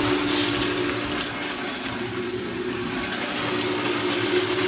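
Concrete mixer running steadily, its drum churning a wet batch of concrete with a constant rushing, sloshing noise over a low mechanical hum. It starts abruptly just before this.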